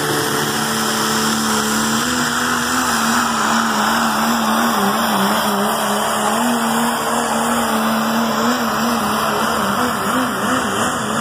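Diesel four-wheel-drive pickup truck's engine running hard at high revs while pulling a weight-transfer sled. The pitch steps up about two seconds in, then wavers up and down as the revs rise and fall.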